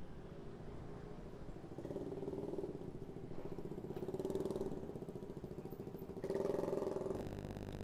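Engine of a nearby motor vehicle running in street traffic, a steady low drone that swells a few times and is loudest a little over six seconds in. A fast, even ticking comes in near the end.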